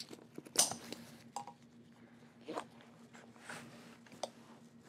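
Nylon pack strap and plastic buckle being handled as a rifle is strapped down on top of a backpack: a few scattered rustles and light clicks, the loudest about half a second in.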